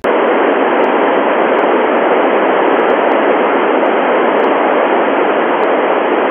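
Icom IC-9700's FM receiver hissing with loud, steady static on the 70 cm satellite downlink, squelch open and no station coming through. The hiss cuts in suddenly at the start.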